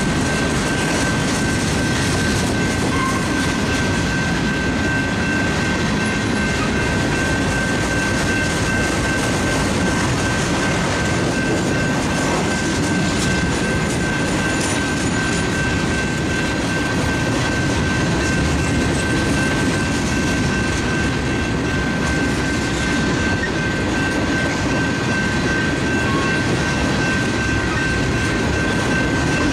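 Freight train of covered hopper and tank cars rolling past at a steady pace: a continuous rumble of steel wheels on rail with light clickety-clack. A thin, steady high-pitched tone sounds over it.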